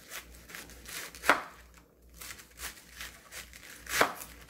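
Kitchen knife slicing a cabbage wedge into thick strips on a wooden cutting board: crisp crunching cuts through the leaves, each ending in a knock of the blade on the board. Two knocks are much louder than the rest, about a second in and near the end.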